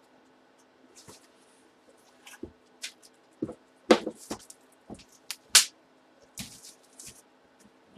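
Hands handling and rustling packaging and envelopes: irregular crinkles and clicks, the two sharpest about four and five and a half seconds in.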